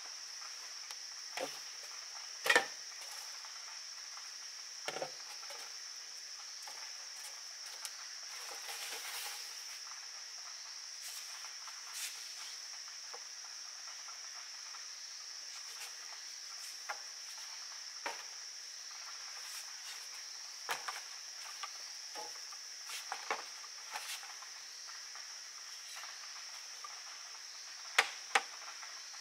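Steady, high insect chorus of the forest. Scattered knocks and taps come from a long bamboo pole being handled and from steps on rock and bamboo slats. A sharp knock comes about two and a half seconds in, and two more close together near the end.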